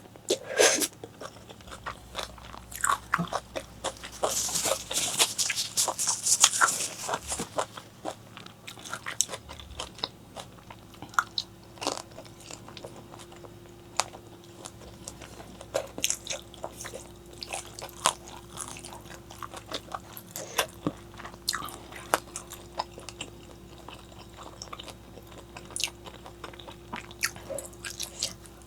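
Close-miked eating: bites and crunchy chewing with many small crackles, and a longer stretch of loud crunching about four to seven seconds in. A faint steady hum comes in about eleven seconds in.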